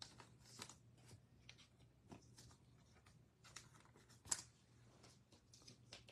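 Faint rustling and small plastic clicks of trading cards being slid into plastic card sleeves, with a sharper click about four seconds in.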